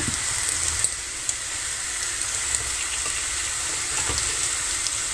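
Syrniki (cottage-cheese pancakes) frying in hot oil in a pan on high heat: a steady sizzle, with a couple of faint ticks, about a second in and again near the end.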